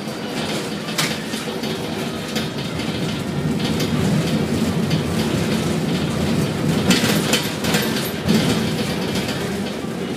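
Container gantry crane machinery running: a steady rumble that grows louder toward the middle, with sharp metallic clicks and clanks, a few of them close together near the end.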